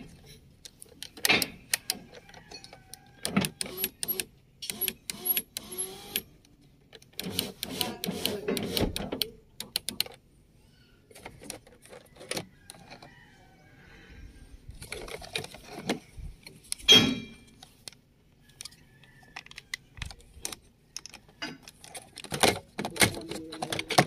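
Plastic clicks and knocks as the power window switch and armrest trim of a wing van truck's door are handled and pressed into place, with the power window motor running in a few longer stretches. One loud knock comes about two-thirds of the way through.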